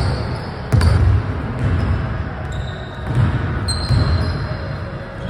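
Basketball bouncing on a hardwood gym floor during one-on-one play, several low thuds, with short high sneaker squeaks. A sharp knock comes just under a second in.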